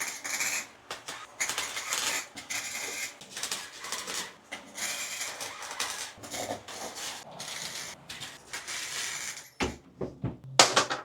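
Welding arc crackling in short bursts of a second or two with brief gaps, the start-stop pattern of tack welding fresh sheet-metal patches into a rusted car hatch. A few sharp knocks near the end.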